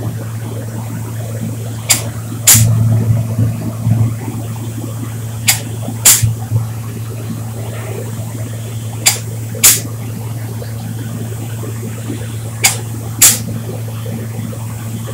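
Spray-booth extraction fan running with a steady low hum while varnish is sprayed onto wooden boards. Short, sharp hisses of air come in pairs about half a second apart, repeating roughly every three and a half seconds.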